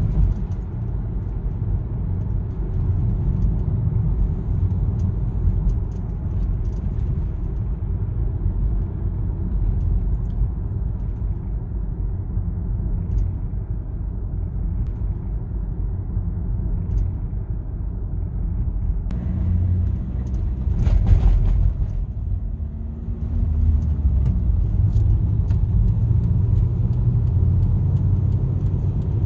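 A car driving on city streets: a steady low rumble of tyres and engine, with a brief louder noise about 21 seconds in, and the rumble a little louder over the last few seconds.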